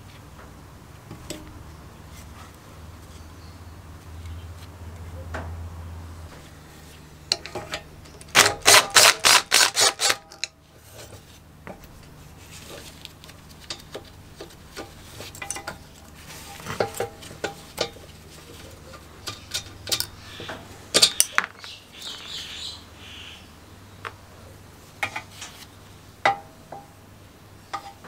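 Metal parts and tools clinking and knocking as a small two-stroke engine is taken apart by hand. About a third of the way in there is a quick run of loud clicks lasting about two seconds, the loudest part; the rest is scattered single clinks.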